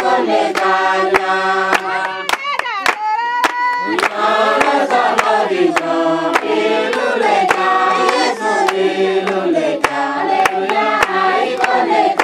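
A mixed group of men and women singing a Christian greeting song together, clapping their hands in time about twice a second. Around three seconds in, a single voice briefly leads a line before the group comes back in.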